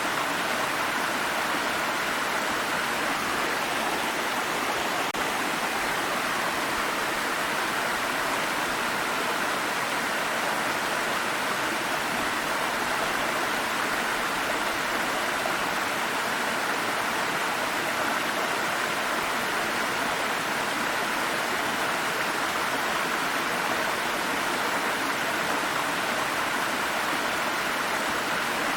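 Flowing water stream rushing steadily, an even splashing noise with no breaks.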